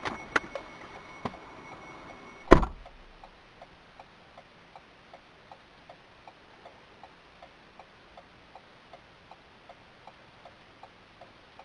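A steady high electronic tone with a few clicks, cut off by a single loud thump about two and a half seconds in; after it, a car's hazard-light flasher clicks on evenly, about three ticks a second.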